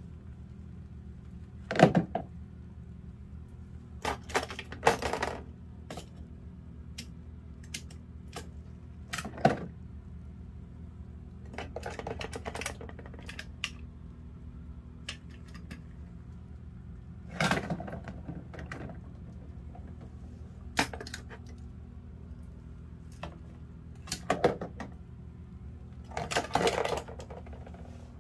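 Die-cast toy cars knocking and clattering against hard plastic containers as they are handled. The sounds come as irregular sharp clicks and short bursts of clatter every few seconds, over a faint steady hum.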